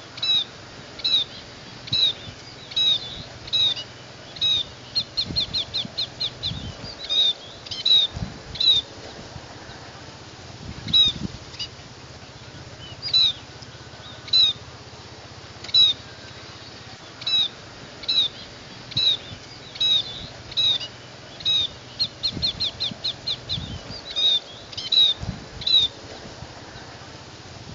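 Scaly-breasted munia (Lonchura punctulata) calling: short, high-pitched notes repeated about once a second, broken twice by a quick run of rapid notes.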